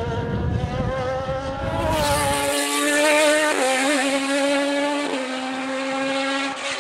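Radical SR4 race car's engine running at high revs as it climbs away. A deeper, closer rumble gives way about two seconds in to a more distant, higher-pitched note, which breaks briefly twice at the car's gear changes.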